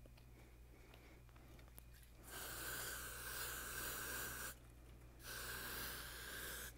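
Aerosol spray can hissing in two sprays onto a tuft of dyed dog hair, the first about two seconds long, then a short pause and a second of about a second and a half. The hiss carries a faint steady whistle.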